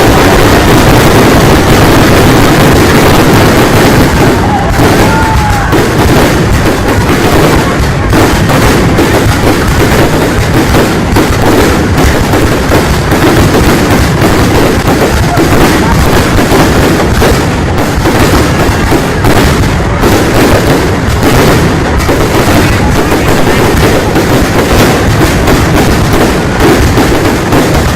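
Fireworks going off in a dense, overlapping barrage: many sharp bangs and crackles in quick succession over a continuous loud rumble.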